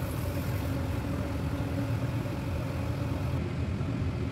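A steady low droning hum of a running motor, with a faint held tone over it.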